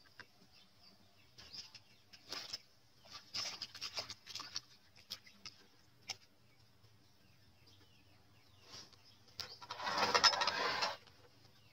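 Faint, scattered taps and rustles of hands handling chopped onion and chilli in a metal bowl of water, then about a second of louder rustling near the end.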